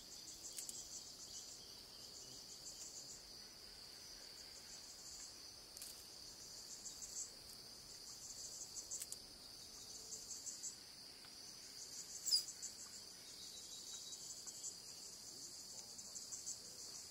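Forest insects chirping steadily in a high, fast-pulsing chorus, with a short, high falling call about twelve seconds in.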